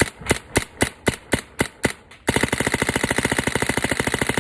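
Planet Eclipse Nexus paintball marker firing: eight single shots about four a second, then about two seconds in a fast, steady string of shots that keeps going.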